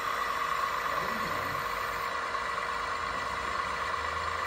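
Radio-controlled model construction truck running: a steady mechanical whine over a low engine-like rumble.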